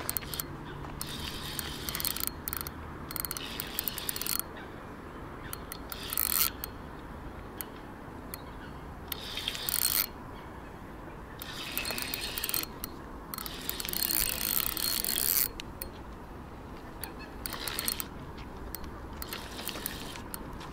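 Spinning reel's drag ratcheting in repeated spurts of half a second to about four seconds as a hooked carp pulls line against it.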